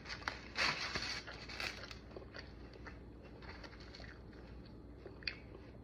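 Biting into a slice of thin, crisp, well-charred pizza, with a few crunches in the first two seconds, then quieter chewing with an occasional crackle.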